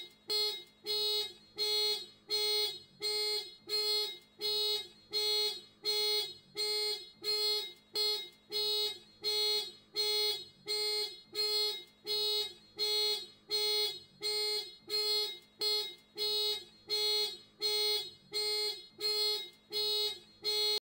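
Ford Fiesta car alarm going off: a steady, evenly spaced train of identical buzzy beeps, about three every two seconds.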